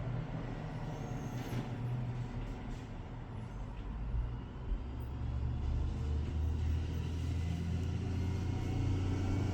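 Steady low engine-like rumble, growing somewhat louder in the second half.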